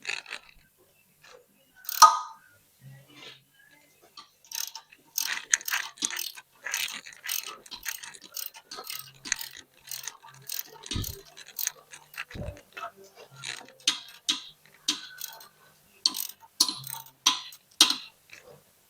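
Irregular metallic clicking and clinking of hand tools and metal transmission parts being worked, coming in quick clusters from about four seconds in, with two dull knocks near the middle.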